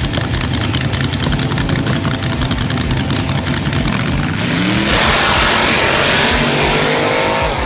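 Drag race car engine running with a rapid, choppy beat, then from about four and a half seconds in a loud rush of noise as it revs up, its pitch rising.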